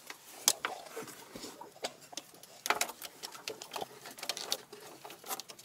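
A knife cutting through a cable tie on a hose, heard as irregular sharp clicks and short scrapes.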